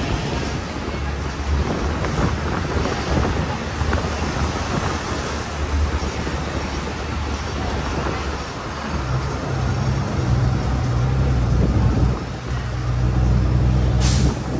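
Double-decker tour bus running along a city street, heard from the open upper deck: a low engine hum under steady road and wind noise. The engine note rises about nine seconds in, and a brief sharp noise comes near the end.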